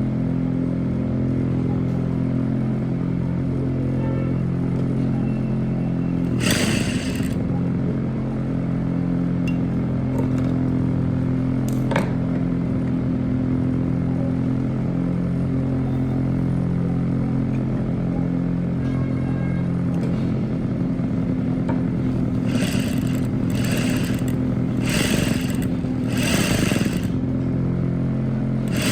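Electric sewing machine running almost without a break as it stitches a seam, its motor hum shifting in pitch with changes of speed. A few short rustling or scraping noises come through, several of them near the end.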